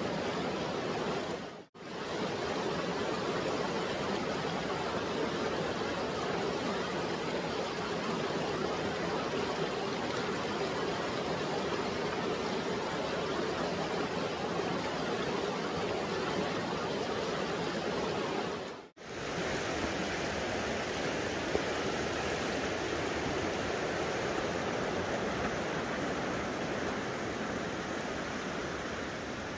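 Water rushing steadily in a stream, an even hiss that drops out briefly twice.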